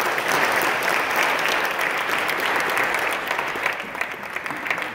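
Audience applauding, many hands clapping at once, easing off slightly near the end.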